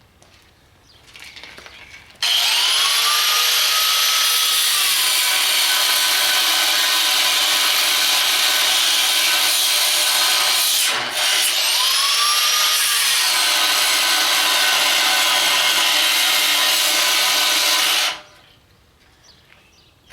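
Chicago Electric 4-inch angle grinder with a cutoff wheel spinning up and cutting soft steel, a loud high grinding whine. It stops briefly about halfway through, spins up again, and shuts off near the end.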